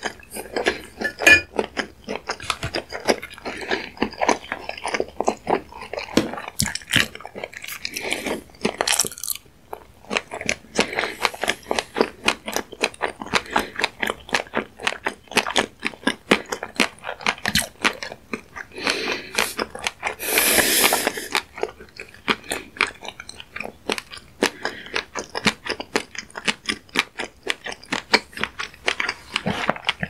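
Close-miked chewing of fish roe: a dense run of rapid small crackles and pops as the eggs burst in the mouth, with a hiss about a second long roughly two-thirds of the way through.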